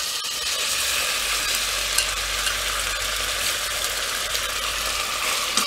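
Marinated pork belly sizzling in hot oil with golden garlic and shallots in a stainless steel pot, pushed around with chopsticks. The meat is searing at the start of the sauté, and the frying hiss is steady.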